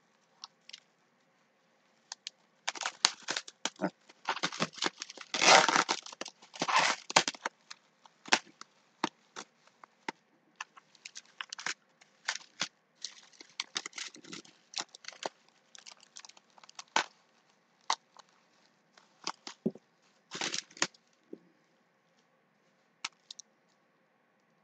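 Bubble wrap being pulled open and unwrapped by hand: irregular crinkling, tearing and crackling, heaviest and loudest a few seconds in, then thinning to scattered rustles and clicks with one more burst near the end.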